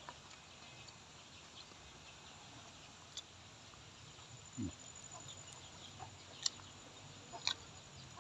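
Chickens clucking faintly in the background, with one short downward cluck about halfway through, and a few sharp small clicks.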